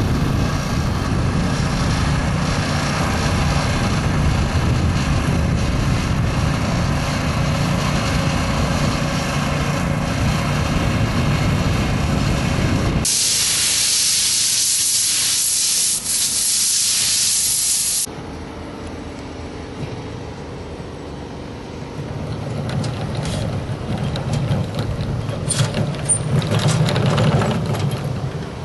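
A ride-on line-striping machine's small gasoline engines running steadily. About 13 seconds in, the sound changes to the loud hiss of sealcoat being sprayed from a hose wand, which cuts off after about five seconds. After that, a quieter machine runs and grows louder over the last few seconds, with a few clicks.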